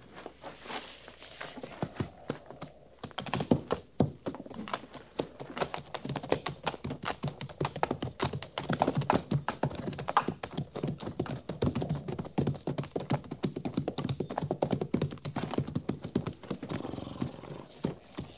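A galloping horse's hoofbeats as a radio-drama sound effect: rapid knocking hooves, sparse at first, then louder and dense from about three seconds in.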